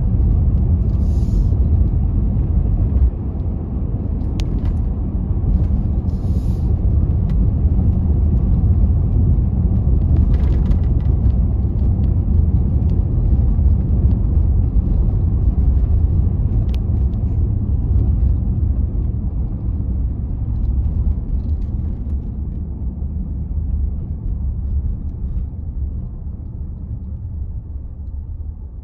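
Car driving on a paved road, heard from inside the cabin: a steady low rumble of tyres and engine that fades gradually over the last several seconds as the car slows to a stop.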